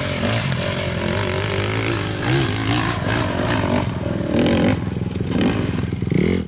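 Dirt bike engine revving under load as it climbs a steep dirt hill, its pitch rising and falling several times as the throttle is worked.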